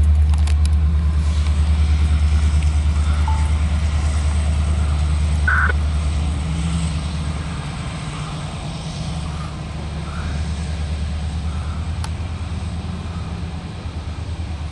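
Norfolk Southern SD60E diesel locomotives, shoving as rear helpers on a loaded coal train, passing with a deep, pulsing engine rumble that eases somewhat after about six seconds.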